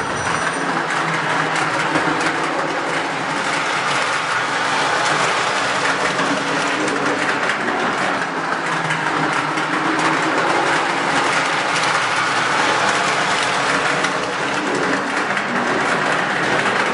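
Lionel O gauge model train running steadily on FasTrack, with a dense clicking of wheels over the track.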